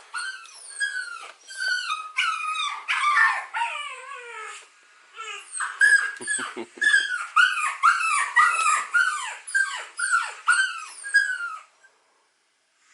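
A dog whining in a quick run of short, high whimpers that fall in pitch, two or three a second, with a brief pause about five seconds in. It cuts off abruptly near the end.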